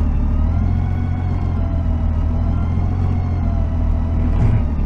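Honda Goldwing GL1800's flat-six engine running at low speed, its note rising and falling gently over a steady low hum.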